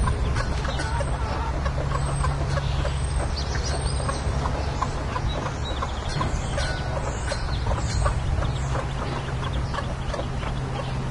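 Bantam hens clucking to a brood of Muscovy ducklings, which peep with many short, high calls throughout, over a steady low hum.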